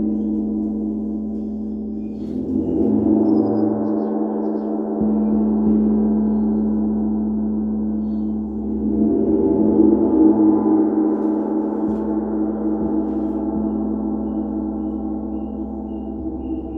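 Gong ringing in a sustained, many-toned wash, as in a gong bath, swelling up about three seconds in and again about nine seconds in.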